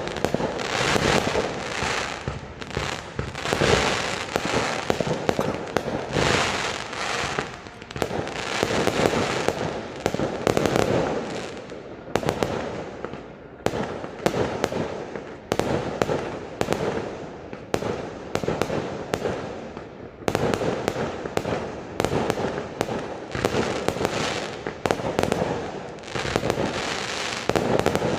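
Fireworks display going off without pause: rapid, overlapping bursts and bangs, densely packed throughout.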